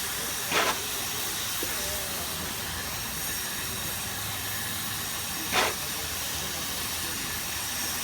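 Steady hiss of steam escaping from the whistle-blow supply line, broken twice by short sharp bursts of venting about five seconds apart; no whistle is sounding.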